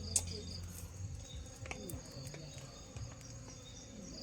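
Insects chirping in repeated pulsed runs, with a sharp click just after the start and a few fainter knocks.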